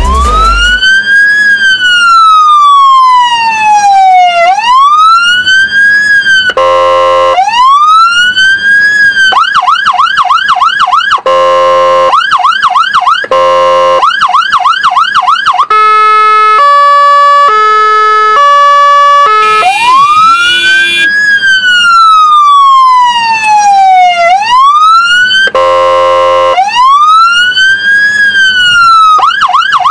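Fire engine's electronic siren run through its tones: slow rising and falling wails, fast yelps at about three a second, a two-tone hi-lo, and short horn blasts in between, the cycle starting over about two-thirds of the way through.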